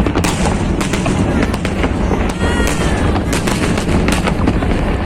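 Fireworks going off without a break: many sharp bangs and cracks over a constant low rumble.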